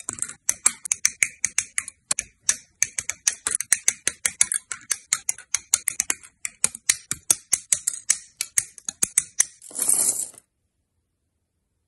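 Hobby nippers snipping Gunpla parts off plastic runners, a rapid string of sharp clicks several times a second. About ten seconds in comes a short clatter of loose plastic parts dropping onto a mat.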